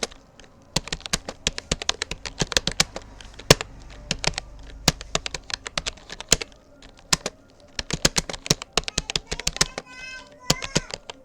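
Rapoo computer keyboard being typed on in a continuous run of quick, irregular key clicks, several a second, during a typing speed test.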